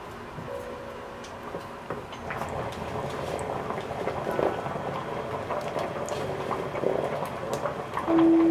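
Braised beef short-rib stew (galbi-jjim) bubbling at a boil in a stainless steel pot, the bubbling and popping coming in about two seconds in. Light background music plays throughout, with a louder held note near the end.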